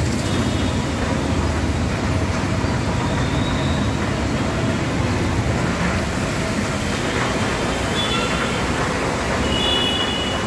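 Traffic driving along a flooded road: buses, cars and motorbikes moving through the water, a steady mix of engine noise and the wash of water off their wheels.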